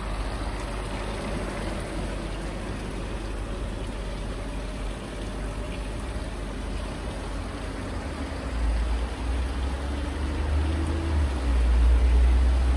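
Steady rushing of fans, a paint-fume extractor and a cooling fan drawing air, clearing exhaust fumes from the garage. A low rumble builds in the last few seconds.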